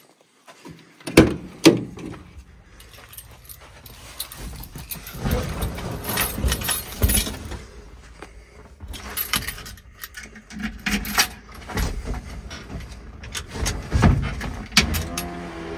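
A Willys pickup's cab door clunking twice, loudly, about a second in, then rustling of someone moving in the cab. Near the end a set of keys jangles and clicks at the dash ignition switch.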